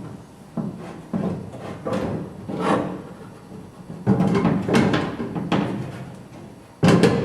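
Irregular metallic clunks and knocks, about eight of them, as the quarter window glass and its rollers are worked into the regulator channels.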